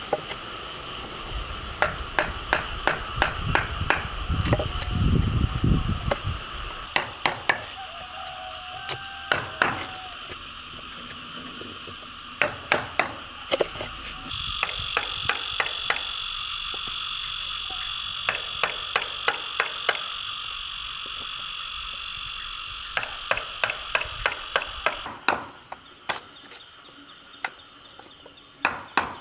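Wooden mallet striking a wood chisel in quick runs of sharp blows, chopping out a mortise in a hardwood timber rail. A steady high-pitched background drone runs underneath.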